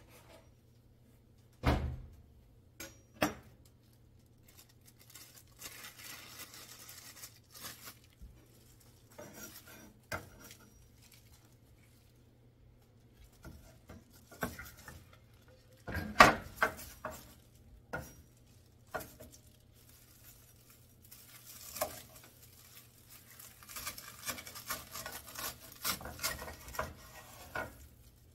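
A kitchen knife cutting through a stack of crisp, oil-roasted laver (gim) sheets on a wooden cutting board, with dry crackling and rustling of the seaweed. Several sharp knocks and clatters of the board and knife come in between, the loudest about 16 seconds in.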